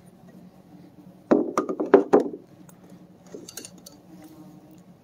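Metal hand tools clinking and knocking as they are handled, set down and pulled from a packed tool bag. A quick cluster of clinks comes about a second and a half in, followed by a few fainter clicks.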